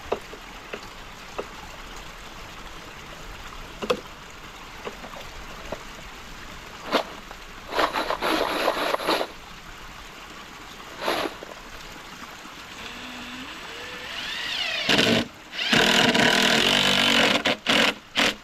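DeWalt cordless drill driving screws into wood: the motor winds up with a rising whine, then runs in loud bursts that stop and start near the end. Before that, scattered clicks and clatter of tools being handled.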